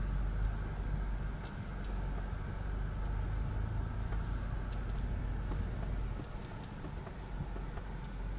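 Mitsubishi Montero Sport's V6 engine idling steadily, heard from inside the cabin, with a few faint clicks; the low hum eases a little about six seconds in.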